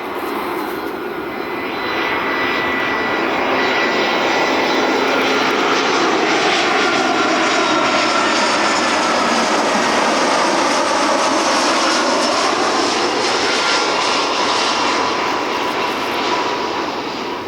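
Airliner on its landing approach passing close by. Its engine noise swells about two seconds in, holds loud and steady with a slow sweeping whoosh, then eases off near the end.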